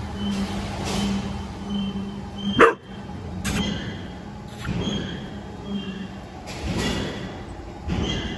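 Dog giving one sharp bark about two and a half seconds in, the loudest sound, over a steady low engine hum that fades after it. Softer noisy sounds follow every second or so.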